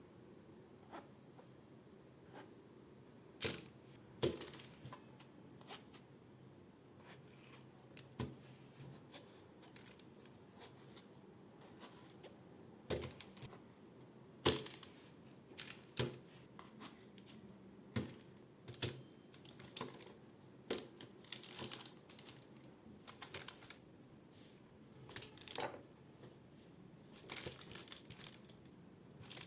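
Irregular kitchen handling sounds from food preparation: scattered sharp clicks and taps with short bits of rustling and crinkling, coming more often in the second half.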